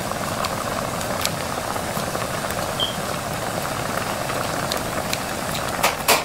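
Steady hiss of a portable gas burner under a pot of stew at the boil, with scattered snips of kitchen scissors cutting chunks of pork and two loud clatters near the end.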